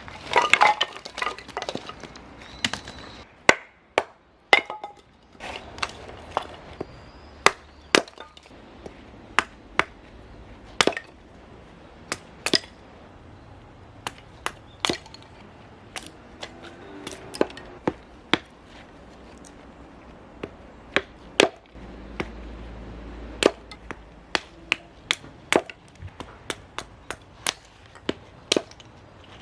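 Firewood being split by hand: a long series of sharp chopping blows, irregularly spaced at about one a second.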